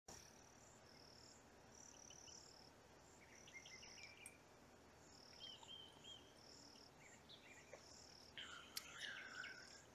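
Faint insect calls outdoors, a short high chirp repeated about every half second, with a few brief bird chirps in between, the last near the end.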